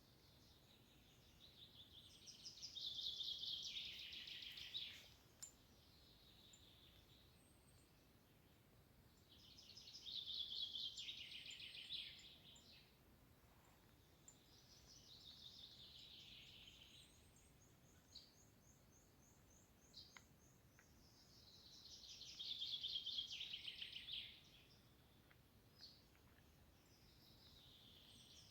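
A songbird singing, a rapid trilled phrase about two to three seconds long repeated four times with pauses of several seconds between. Another bird's thin, high trill sounds between the first two phrases, over a faint outdoor background.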